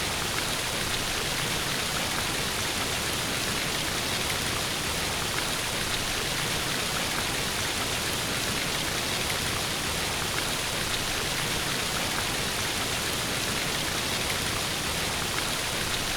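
Steady rushing water of a waterfall sound effect, an even hiss with no breaks or changes.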